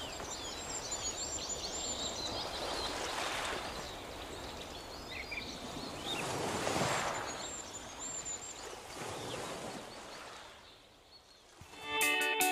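Outdoor nature ambience: a rushing noise that swells and fades every few seconds, with high birds' chirps over it. Strummed guitar music starts near the end.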